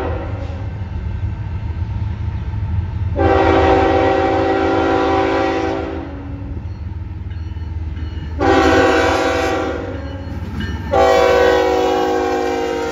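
CN freight locomotive's air horn sounding the grade-crossing signal, a multi-note chord: a long blast, a short blast, then a final long blast still going as the lead locomotives pass. Under it runs the steady low rumble of the approaching diesel locomotives.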